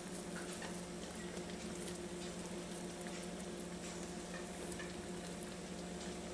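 Quiet kitchen room tone: a steady low electrical hum with a few faint, scattered ticks.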